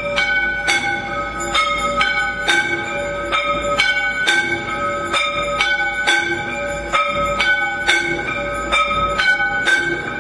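Temple bells rung rapidly and without pause for the aarti, about three strokes a second, with at least two bells of slightly different pitch sounding in turn, each stroke ringing on.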